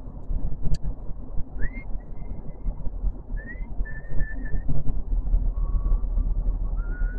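Car cabin noise while driving: a steady low road-and-engine rumble. Over it, a thin high whistle is held at a few different pitches, sliding up into some of them, and there is one sharp click under a second in.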